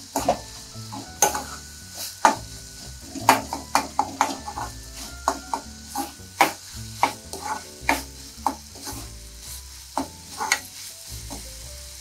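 Metal spatula scraping and clanking against a metal kadai as chopped vegetables are stir-fried over a raised flame, with a steady sizzle underneath. The strokes come irregularly, about two a second, and ease off near the end.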